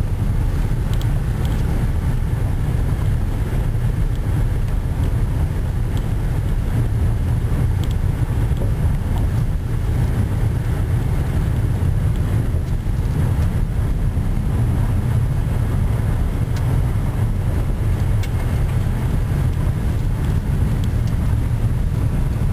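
Steady low rumble inside the cabin of a Honda CR-V driving along an unpaved dirt road: engine and tyre noise, with a few faint ticks.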